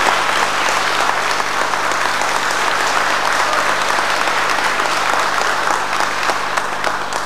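Audience applauding, a dense, steady clapping that dies away near the end.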